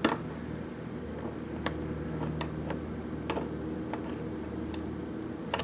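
Small irregular metallic clicks of a hook pick and tension wrench working the pins of a Corbin Euro cylinder lock, about ten over the stretch, over a steady low hum.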